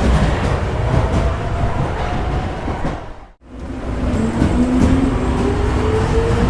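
Subway train pulling out of a station: low rumble with a motor whine rising in pitch. About halfway through the sound drops out briefly to silence, then comes back and the rising whine starts again.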